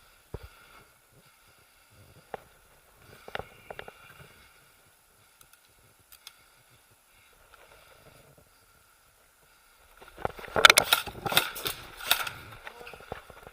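Footsteps and rustling of a person moving over dry ground and brush: a few scattered snaps at first, then about ten seconds in a stretch of loud, quick, heavy steps, as of running.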